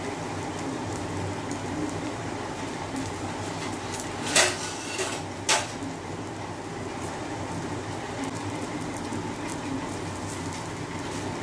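Omelette frying on a flat griddle pan, a steady low sizzle over a faint hum. Two sharp clatters come about four and five and a half seconds in.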